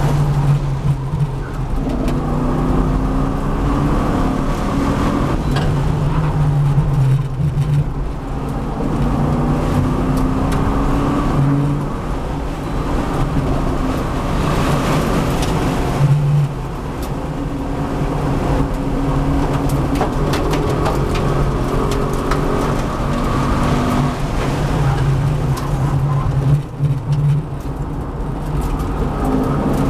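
V8 race car engine revving hard through the gears on a lap, heard from inside the car. The note repeatedly climbs in pitch under acceleration and breaks off at each gear change or lift for a corner.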